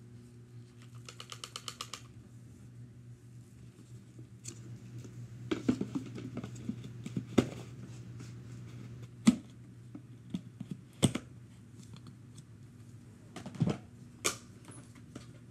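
Plastic parts of a vacuum cleaner's dust canister being handled and taken apart: a quick run of small clicks about a second in, then scattered sharp clicks and clacks as the lid comes off and the pieces are set down, over a low steady hum.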